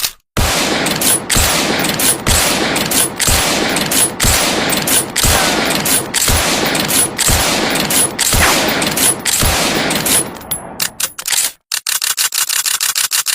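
Cavalry carbine firing about ten shots, roughly one a second, each with an echoing tail, followed near the end by a quick run of small mechanical clicks.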